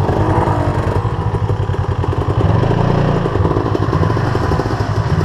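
Suzuki RM-Z450 dirt bike's single-cylinder four-stroke engine running at low revs, rising and falling a couple of times.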